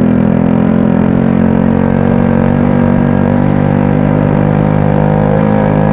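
Small 50cc motorcycle engine with a straight-through exhaust, running loud and steady at constant revs while the bike is ridden.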